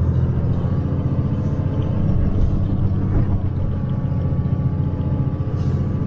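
5.9-liter Cummins turbodiesel of a 1994 Dodge Ram 2500 running steadily under throttle, heard from inside the cab as the truck pushes up a snowy hill.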